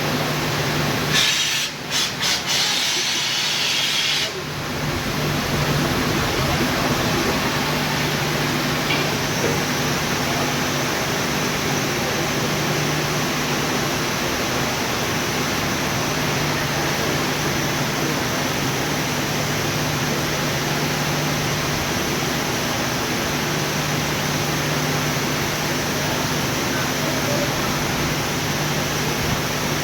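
Steady industrial hiss and rumble with an on-and-off low electrical hum, the running noise of an induction furnace melting steel. Between about one and four seconds in there is a brief, sharper hiss.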